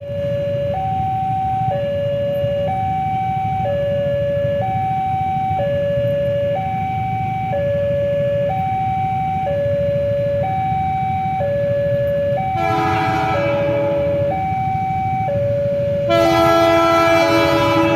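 Electronic two-tone warning alarm alternating steadily between a low and a high tone, about one swap a second, typical of a railway level crossing, over a low rumble. Past the middle a train horn sounds a chord blast, then a second, louder and longer blast near the end.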